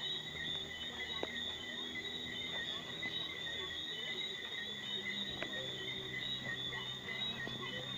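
Night insects, crickets by their sound, trilling steadily in two high, unbroken pitches over a faint low hum, with a couple of single light ticks.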